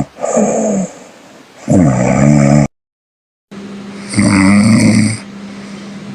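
A woman snoring in her sleep: three loud snores, each lasting about a second. The sound drops out completely for nearly a second after the second snore, and a steady low hum runs under the third.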